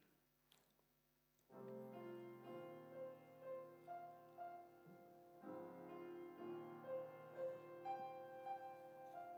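Keyboard accompaniment playing held chords with a melody above them, starting about a second and a half in after a near-silent start with a couple of faint clicks; the music pauses briefly and a new phrase begins about two-thirds of the way through.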